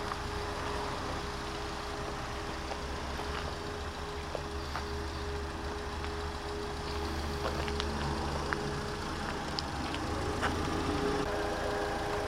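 Fiat Grande Punto's 1.2-litre four-cylinder petrol engine idling steadily, heard from outside the car, with occasional faint clicks.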